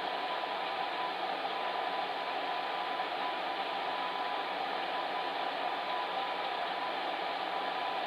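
Electric fan heater running steadily: an even rush of blown air with a faint steady hum.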